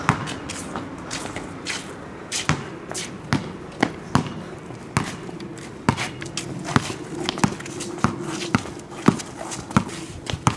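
A basketball being dribbled on a concrete driveway: a steady run of sharp bounces, about two a second.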